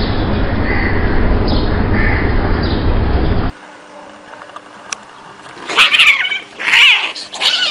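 Cats yowling at each other in a fight standoff: several loud, wavering yowls that begin a little past two-thirds of the way in. Before that comes a steady, loud rumbling noise with faint cat cries in it.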